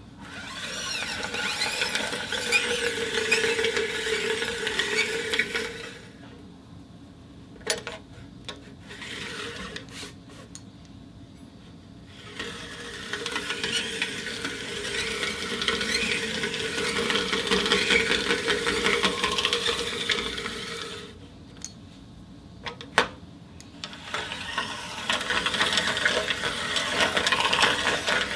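Glass marbles rolling and rattling on a spinning turntable, in three long runs separated by quieter pauses with a few single clicks.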